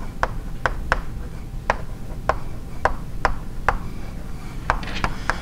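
Chalk tapping and scraping on a blackboard as words are written: about ten sharp, irregular taps, roughly two a second, over a low room hum.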